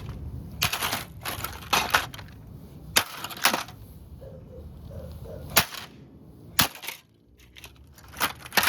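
Repeated sharp blows striking a plastic remote-control car as it is being smashed: about ten hard cracks and knocks at irregular intervals, with a short gap near the middle.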